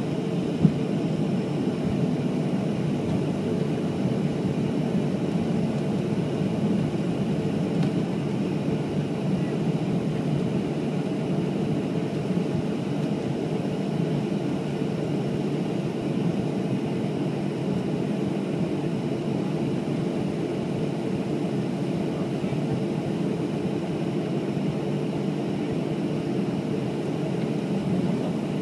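Cabin noise inside a Boeing 737-500 taxiing, its CFM56-3 turbofan engines at low taxi power: a steady low rumble with faint steady whine tones above it. A single click about a second in.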